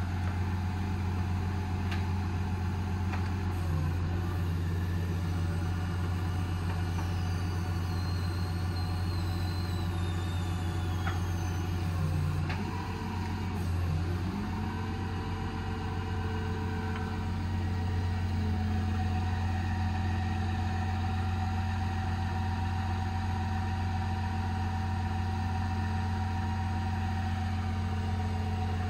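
Cummins 6.7 inline-six turbodiesel of a Ram 5500 running steadily while it drives the IMT service crane's hydraulics, the boom swinging and lowering. About halfway through, the engine's note dips briefly and comes back up as the load changes, and a faint falling whine is heard a little before that.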